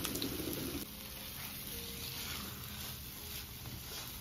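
Faint sizzle of a minced-chicken and vegetable filling in a non-stick frying pan, with a spatula stirring through it. A steady low rushing sound cuts off just under a second in.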